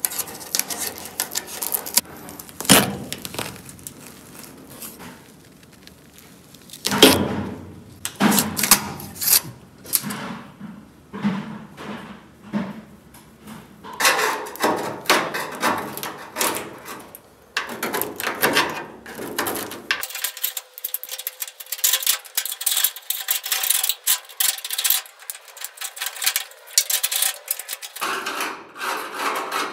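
Hand tools scraping and prying old rubber seal and rust off the sheet-metal body of a 1965 VW Beetle: irregular scrapes, clinks and knocks.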